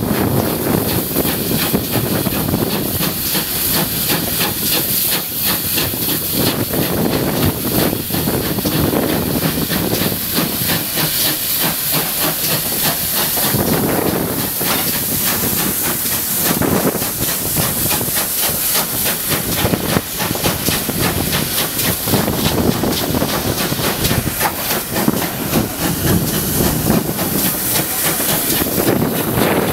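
GWR pannier tank steam locomotive under way, a loud steady hiss of steam and exhaust over the running of the train, heard from a carriage window just behind the engine.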